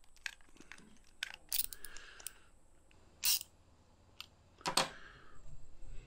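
Small socket ratchet and metal parts clicking and clinking as the little nuts on a diesel fuel shutoff solenoid are turned by hand: a scattering of short, sharp clicks, the loudest about three seconds in and again near five seconds.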